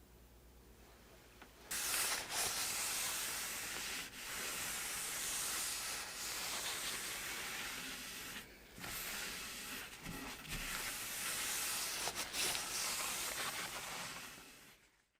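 A steady hiss that starts about two seconds in, with a couple of brief breaks, and fades out near the end.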